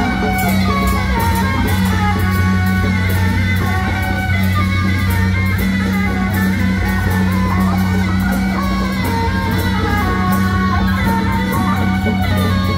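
Beiguan ensemble playing: suona reed horns carry a shifting melody over frequent percussion strikes, with a steady low hum underneath.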